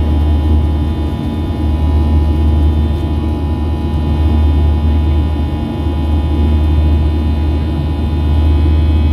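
Cabin noise of a Boeing 737-700 in its climb after takeoff, heard from a seat near the wing: its CFM56-7B turbofans give a steady low rumble with several steady whining tones over it.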